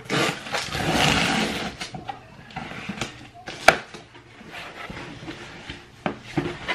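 A cardboard Stitch Fix shipping box being torn open by hand and its contents pulled out. Tearing and rustling of cardboard and paper come first, then quieter handling with scattered clicks and one sharp snap a little past halfway.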